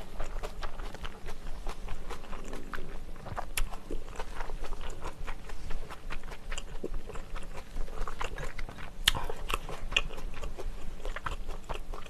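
Close-miked chewing of spicy pork-bone soup, with short sharp clicks and crunches scattered throughout.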